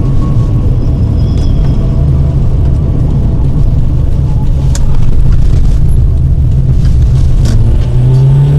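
Toyota RAV4 driving, with a steady low rumble from engine and road, two short sharp clicks about five and seven and a half seconds in, and the engine pitch rising near the end.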